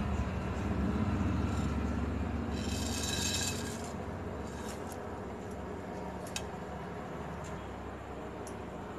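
Whole spices (bay leaves, black peppercorns and shahi jeera) going into hot oil in a steel pot: a burst of sizzling about three seconds in, then scattered small clicks and crackles over a steady low background.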